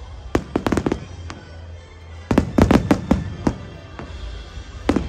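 Aerial firework shells bursting in sharp bangs: a few in the first second, a dense cluster about two and a half seconds in, then single bangs later. A steady low rumble runs underneath.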